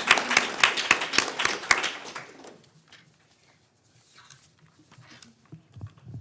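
Audience applauding, the clapping dying away about two and a half seconds in.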